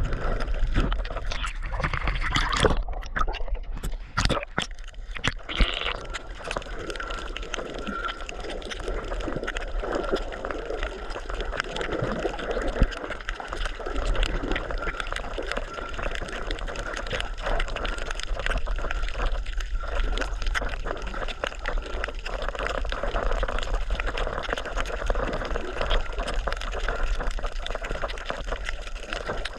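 Water gurgling and sloshing steadily, with a few sharp clicks in the first few seconds.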